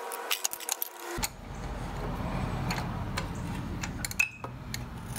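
Hand tools clicking and clinking against metal as the S&S Short E carburetor's mounting bolts are unscrewed on a Harley Shovelhead. There are scattered sharp clicks and a short metallic ping about four seconds in, over a steady low hum that starts about a second in.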